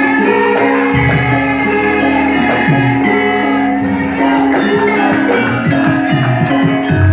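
Music with singing over a fast, steady jingling percussion beat and a sustained held note underneath.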